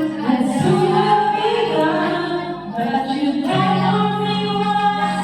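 A group of voices, mostly women's, singing a worship song in long held notes.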